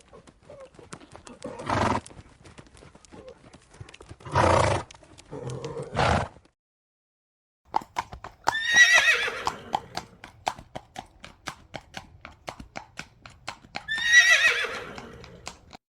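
Horse sounds: first a few short breathy snorts among scattered hoof clicks. Then, after a brief silence, steady hoofbeats clip-clopping about three times a second, and the horse whinnies twice, each call falling in pitch.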